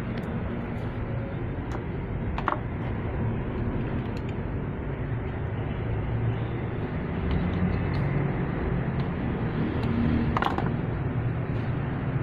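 A steady low rumble throughout, with a few sharp metallic clicks and knocks, the clearest about two and a half seconds in and about ten and a half seconds in, as a wrench works on a generator battery's terminal.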